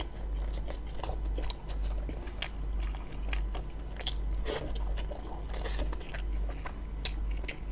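Close-up mouth sounds of a man biting and chewing meat-filled roti John, with many small sharp clicks of the bread and filling between the teeth, over a steady low hum.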